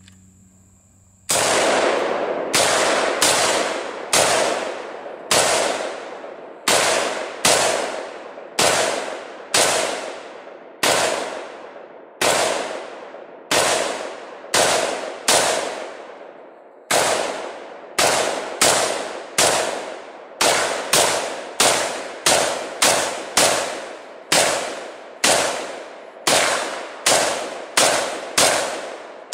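AK-pattern rifle firing rapid single shots, about forty in all, each followed by a short ringing echo. The shots start about a second in, come roughly one a second at first and get quicker, up to two or three a second, in the second half.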